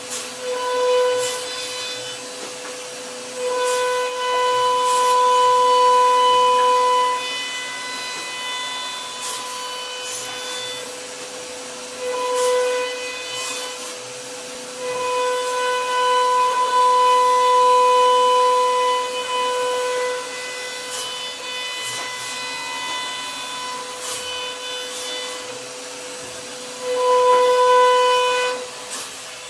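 CNC router spindle whining at a steady high pitch as its cutter carves a solid wood door panel. The whine swells louder for a few seconds at a time, several times over, with scattered sharp ticks.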